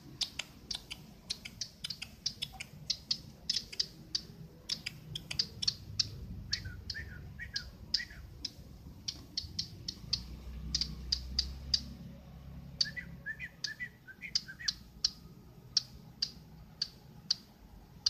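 Small caged songbird giving runs of short, sharp, clicking chirps, a few a second, with softer, lower twittering notes mixed in twice.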